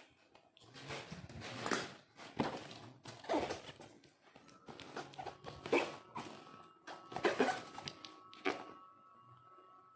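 Cardboard air fryer box being handled and turned on a tiled floor: a series of irregular rubs, scrapes and knocks.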